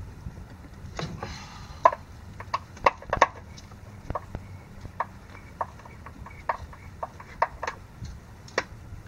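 Ratchet clicking in scattered short strokes, about one or two sharp clicks a second at uneven spacing, as the bolts holding an outboard's lower cowling panel are snugged up.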